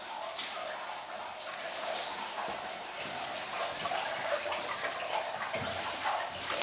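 Steady trickling of water in a limestone cave, with the faint shuffle of a tour group's footsteps on the walkway.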